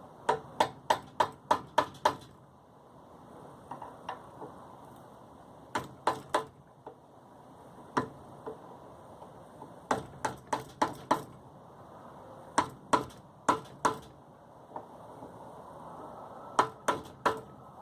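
Light hammer taps on a chisel chipping leftover glue off the screw plug of an idle air control valve. The sharp taps come in quick runs of several, with pauses of a few seconds between runs.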